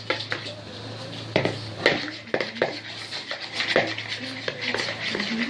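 A metal spoon clicking and scraping against a deep bowl in irregular strokes, stirring a wet slime mixture.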